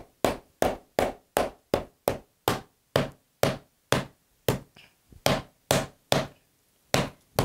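Meat mallet pounding cutlets of meat thin under plastic wrap on a board: a steady run of sharp strokes about three a second, with a short pause near the end.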